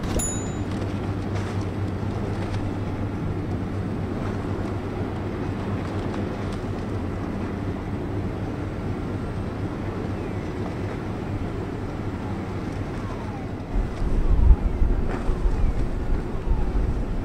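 Steady low drone of a container ship's engine under way. About 14 seconds in, gusts of wind buffet the microphone with an uneven low rumble.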